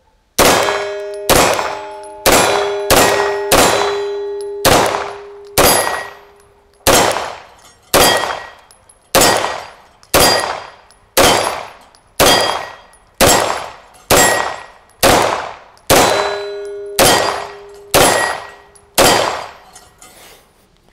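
CZ P-09 9 mm pistol fired about twenty times at a steady pace of roughly one shot a second, each report loud and sharp. After some shots a metallic ringing tone hangs on between them.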